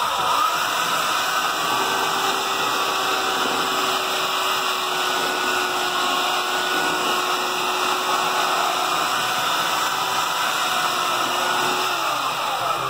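Handheld electric belt sander running steadily as it sands the trimmed edge of a clear plastic Waiex aircraft canopy. Its pitch drops near the end as it winds down.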